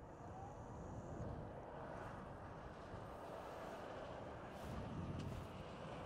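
Faint, steady low rumble of distant vehicles.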